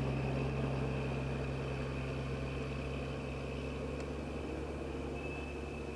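Snowcat engine idling: a steady low hum that slowly fades.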